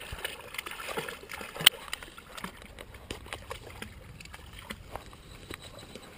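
Small shallow stream running, with scattered light splashes and clicks and one sharper click about one and a half seconds in.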